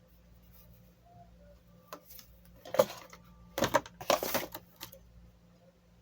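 Handling noise from unboxing: a click, then a few short rustling, clattering bursts in the middle of the stretch, with a couple of small clicks after them.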